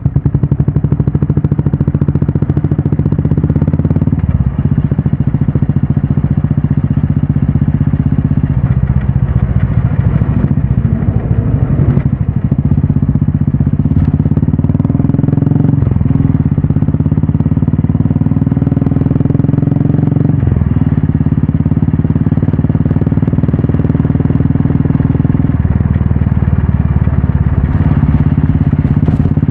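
Royal Enfield Classic 350's single-cylinder engine running through an aftermarket Red Rooster stainless steel exhaust on the move. The exhaust note is steady, with several brief dips where the pitch steps to a new level.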